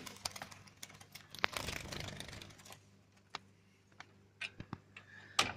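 Irregular light taps and clicks, with a short rustling flurry about a second and a half in and a sharper knock near the end: a bird fluttering and scrabbling against a door's security screen.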